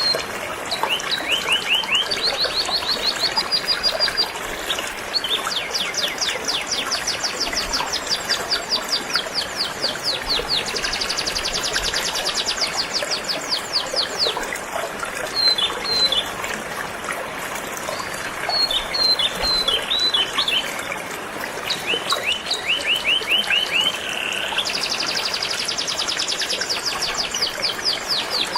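Canary singing: phrase after phrase of fast, rattling trills of repeated notes, with scattered single chirps between them. Underneath, a stream of water runs steadily.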